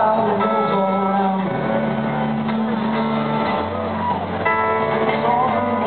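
Rock band playing live, heard from far back in the crowd. A bending electric guitar lead plays over held bass notes that change every second or two.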